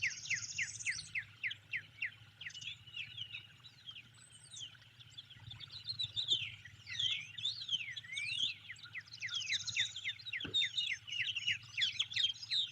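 Several songbirds singing at once: rapid runs of short downslurred whistled notes, several a second, mixed with rising and falling chirps and a couple of brief high buzzy trills. A faint steady low hum runs underneath.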